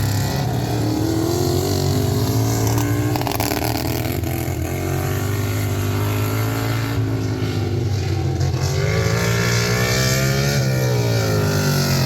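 Racing lawn tractor engines running hard, their pitch rising and falling as they accelerate and lift off around the track.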